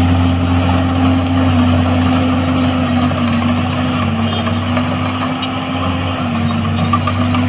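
Diesel engine of heavy earthmoving equipment running steadily under load, its pitch shifting slightly now and then.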